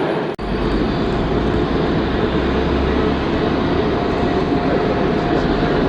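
Steady jet engine noise of an Airbus A330-900neo's Rolls-Royce Trent 7000 engines as the airliner moves on the airfield. The sound drops out for an instant just under half a second in.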